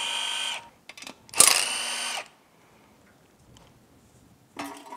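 Milwaukee Fuel cordless driver spinning out windage-tray bolts in two short runs, its motor whine rising quickly and holding steady for under a second each time. A few light metal clicks near the end.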